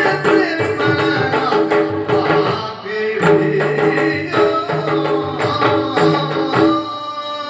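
Yakshagana ensemble music: rapid hand-drum strokes over held melodic tones.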